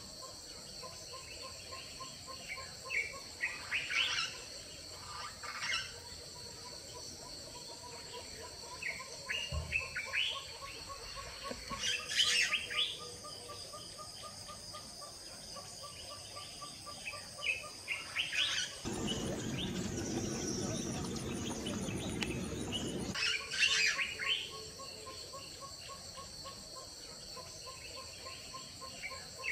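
Birds chirping in short scattered bursts over a steady high-pitched insect drone, with an evenly pulsing call underneath. About two-thirds of the way through, a rushing noise covers everything for about four seconds.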